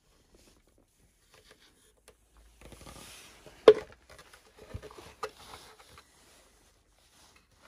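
Plastic Volkswagen Golf Mk2 tail light being handled and turned over: rubbing and scraping of the housing, with one sharp knock about three and a half seconds in and a few lighter clicks after it.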